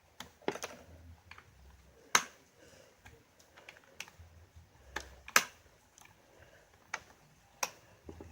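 Sharp plastic clicks and knocks, about eight at uneven intervals, from the Weed Eater GHT17 hedge trimmer's throttle trigger and controls being worked by hand. The engine is not running.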